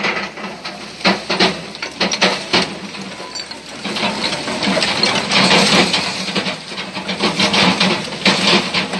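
Household waste sorting machine running, mixed rubbish tumbling and clattering inside it in a dense, irregular stream of knocks over a steady low motor hum.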